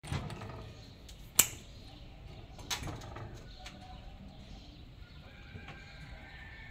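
Sharp clicks and knocks of a corded drill being handled and clamped into a steel drill stand, the loudest about a second and a half in, with another near three seconds. The drill is not running.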